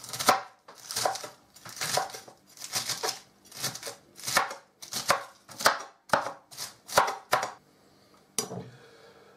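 Chef's knife dicing shredded iceberg lettuce on a cutting board: a run of repeated chops, roughly two a second, that stops about seven and a half seconds in.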